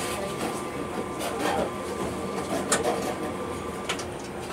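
Tokyu Setagaya Line tram running, heard from inside the car: a steady mechanical hum and whine, with two sharp clicks in the second half.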